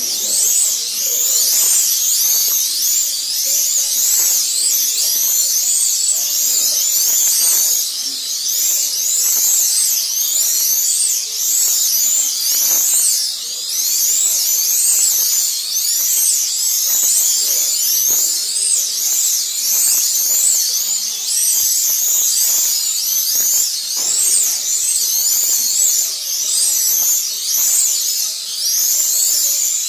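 Several 1/32-scale Eurosport slot cars racing on a multi-lane track. Their small electric motors make an overlapping high-pitched whine that keeps rising and falling as the cars speed up on the straights and slow for the corners.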